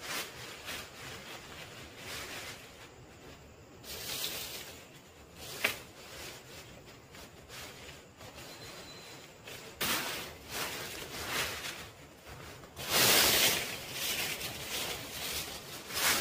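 Leafy branches and dry sticks rustling and swishing as they are handled, with a sharp snap or knock about six seconds in. Near the end comes a louder rush of rustling that lasts about a second.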